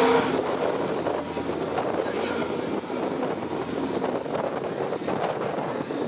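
City bus driving through a flooded street, heard from inside: steady engine and running noise mixed with the wheels pushing through floodwater.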